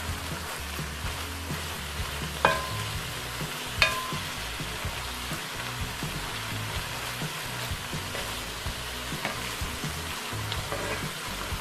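Shredded banana blossom and chicken sizzling in a pan while being stirred, with a steady hiss. Two sharp knocks with a short ring come a few seconds in, and a few lighter clicks follow.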